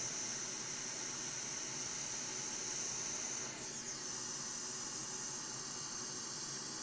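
Hot air rework station blowing a steady hiss while a chip is lifted off a logic board; the highest part of the hiss shifts about three and a half seconds in.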